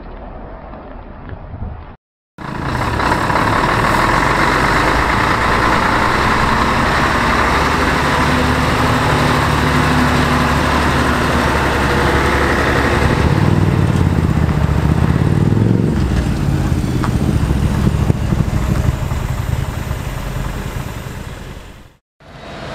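Scania diesel semi-truck pulling a box trailer, driving past with its engine running steadily. About halfway through, the engine note swells and rises, then falls again.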